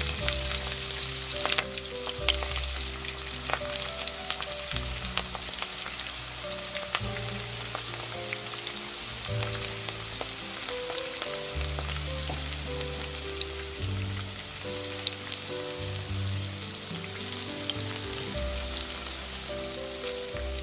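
Cabbage pakoras in gram-flour batter deep-frying in hot oil: a steady sizzle with many small crackles, a little louder in the first second or two. Background music of slow held notes plays underneath.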